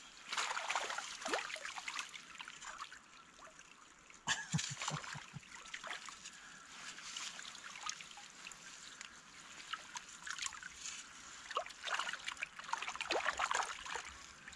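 Keep net being lifted and handled in shallow loch water: irregular splashes, with water trickling and dripping off the mesh. The splashes come in bunches, with a sharp one about four seconds in and a busy stretch near the end.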